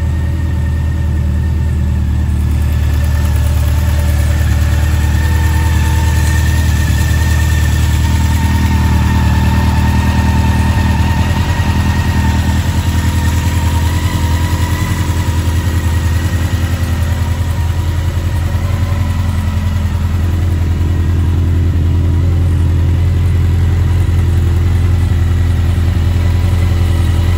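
Honda CB1100's air-cooled inline-four engine idling steadily, just restarted on fresh oil after an oil and filter change.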